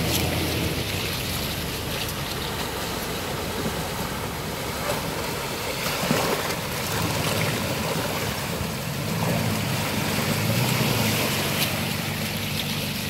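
Shallow creek rushing over rocks while 4x4 trucks drive through it, their engines running low and their tyres splashing through the water. A Toyota Tacoma wades past close by about six seconds in, with a sharp knock at that moment, and the engine hum of the next truck grows in the second half.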